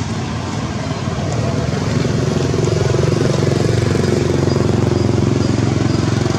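An engine running steadily, getting a little louder about two seconds in.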